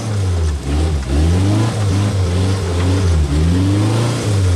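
Off-road 4x4's engine revving up and down repeatedly as it works under load, crawling through dense brush on a rough trail.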